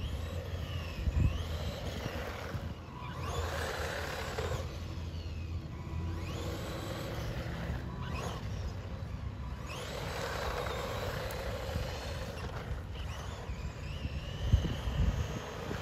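Electric motor of a 1:16-scale RC truck whining in four runs of a few seconds each, the pitch rising and falling as it speeds up and slows, over a steady low rumble, with a couple of thumps near the end.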